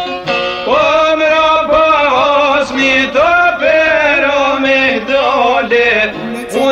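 Albanian folk song: a man sings long, held lines that slide up into each note, over plucked string accompaniment. The instruments play alone for the first moment before the voice comes in.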